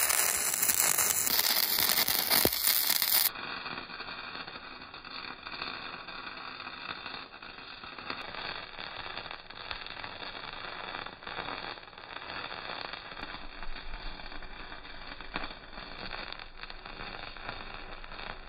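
Wire-feed (MIG) welding arc crackling steadily as a bead is run on steel tube. About three seconds in it drops to a quieter, duller crackle with scattered sharp ticks.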